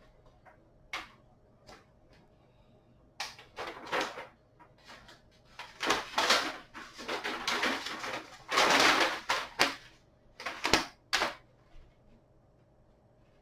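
Hands handling hardware and packaging: scattered clicks and knocks, with two stretches of rustling in the middle.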